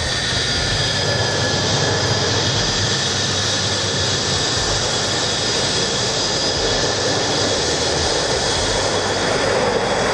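Jet aircraft engines running steadily: a constant rushing noise with a high turbine whine held over it.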